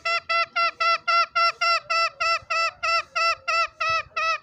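Green junglefowl calling a long, rapid run of short, identical notes, about four a second.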